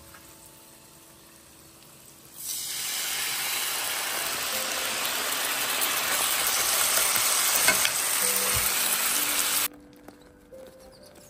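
Loud sizzling from a hot frying pan of sausages as canned baked beans are tipped in, starting suddenly about two seconds in and cutting off abruptly near the end. Faint background music around it.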